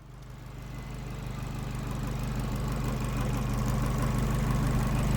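Abarth 595 Competizione's 1.4-litre turbocharged four-cylinder engine idling steadily, fading in over the first two seconds. Under the idle runs the engine-bay noise the owner likens to a squealing belt.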